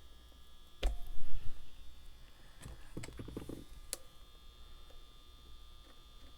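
Handling noise of guitar work at a bench: a few sharp clicks and knocks of a screwdriver and a Stratocaster's plastic knob, with a heavy low thump about a second in and a short rattle a couple of seconds later.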